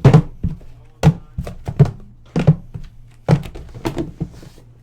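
A run of about a dozen irregular thunks and knocks in a small room, like objects being handled and set down on a hard surface. The loudest comes right at the start.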